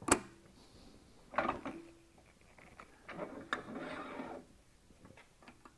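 Workshop handling noises at a wood lathe: a sharp knock, a clunk with a brief ringing tone about a second and a half in, then about a second of rattling and scraping, as the turned piece and tools are handled. No motor is heard running.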